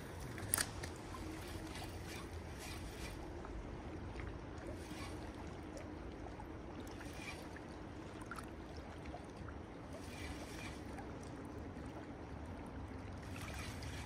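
Steady rush of flowing river water, with a single sharp click about half a second in and a few faint ticks after it.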